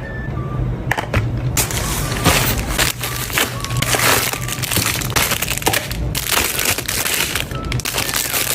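Packaging being handled and opened: dense, irregular crackling and crinkling, with a few sharp snaps.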